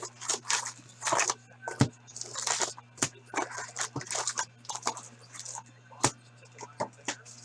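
Hockey card packs being torn open and handled: a rapid, irregular string of crinkly wrapper rustles, tearing and sharp card clicks, over a faint steady low hum.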